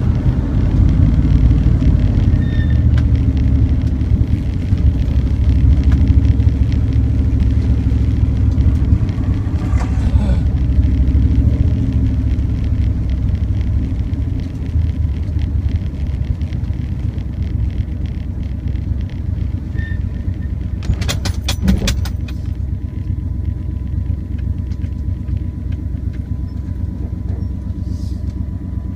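Car engine and road noise with a low rumble, heard from the car while it is driven at about 40 mph, then easing off as the car slows to a crawl and stops. A short cluster of sharp clicks comes about two-thirds of the way through.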